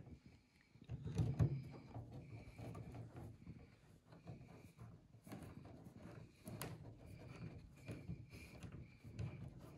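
Small screwdriver driving servo mounting screws into a thin plywood servo tray: quiet, irregular clicks, scrapes and light knocks of the tool and hands against the model plane's fuselage, with a louder knock about a second in.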